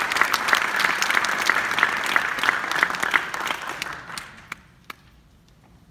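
Audience applauding, a dense patter of many hands clapping that dies away about four seconds in, leaving a few last single claps.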